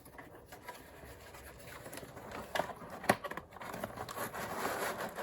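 Broken, brittle plastic antenna cover on an old cordless phone handset being worked loose by hand: scratchy scraping and crackling, with a few sharp clicks about three seconds in.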